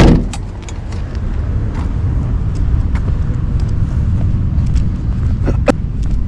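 A vehicle engine running with a steady low rumble. It opens with a loud thump, and a few sharp clicks or knocks come near the end.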